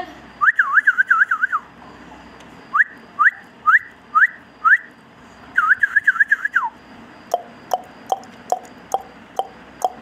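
Clear whistling: a warbling trill, then five short rising whistle notes about two a second, then another warbling trill. In the last few seconds comes a run of sharp clicks, about two to three a second.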